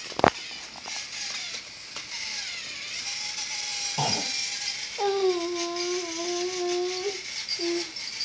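Battery-powered Thomas the Tank Engine toy running on plastic track: a steady rattling whir of its small motor and gears, with a sharp click just after the start. From about five seconds a voice holds a steady note for about two seconds.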